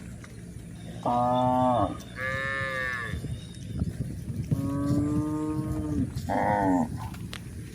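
Cattle mooing: four separate calls, the longest lasting about a second and a half, one much higher-pitched than the others.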